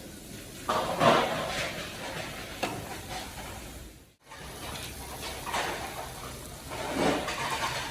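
Cooking sounds: food sizzling in a pan while it is stirred and scraped in several separate strokes. The sound drops out briefly about halfway through.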